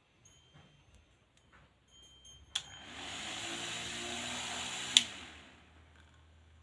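Homemade mini table fan clicked on, spinning up and whirring steadily for about two seconds, then clicked off and stopping.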